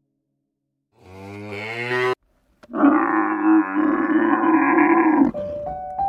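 Cows mooing twice. The first moo rises slightly and cuts off abruptly; about half a second later a longer, hoarser moo follows and ends about a second before the end.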